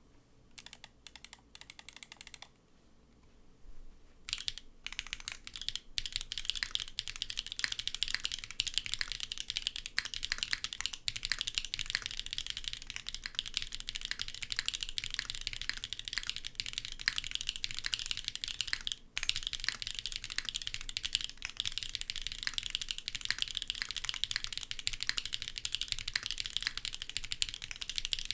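Typing on a custom SINGAKBD x TGR Unikorn keyboard with an FR4 plate in a gummy O-ring mount, stock SWK x OUTVA linear switches and GMK Lavender keycaps. A few separate keystrokes come first, then after a short pause fast continuous typing, which breaks off briefly once about two-thirds of the way through.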